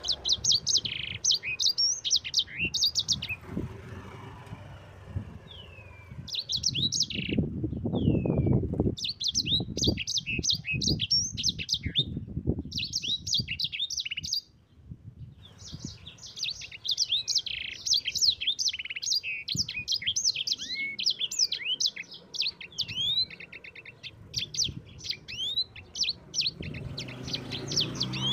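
A sanger songbird singing a long, rapid rolling song of fast, high twittering chirps, broken by a short pause about halfway.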